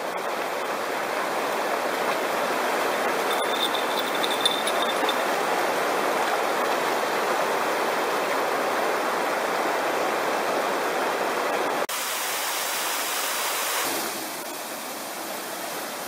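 River water rushing steadily over rocks. The sound changes abruptly twice near the end and is quieter for the last couple of seconds.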